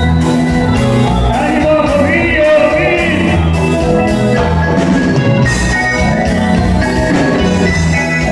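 Live band playing a steady groove on electric guitar, bass guitar, drum kit, congas and keyboard, with a wavering high melody line about two seconds in.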